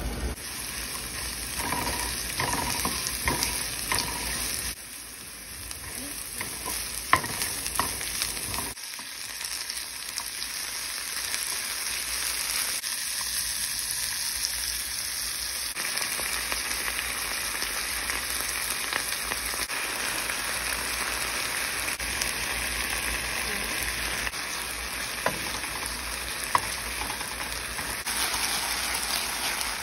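Diced onion and pickled jalapeños sizzling steadily in a nonstick frying pan, stirred with a wooden spatula that now and then clicks and scrapes against the pan.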